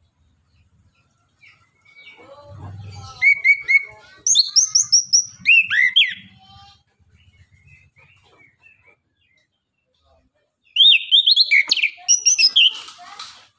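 Chestnut-capped thrush (anis kembang) singing in two loud bursts of rapid, high whistled notes that slide up and down, the first about three seconds in and the second about eleven seconds in, with a quiet gap between.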